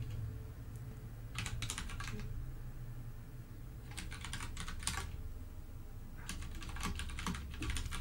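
Typing on a computer keyboard: three short runs of quick keystrokes with pauses between them, over a steady low hum.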